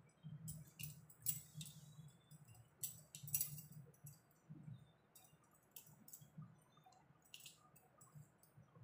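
Faint, scattered clinks of bangles knocking together on moving wrists as hands settle a small cloth-wrapped figure on a cloth-covered seat, over a low steady hum.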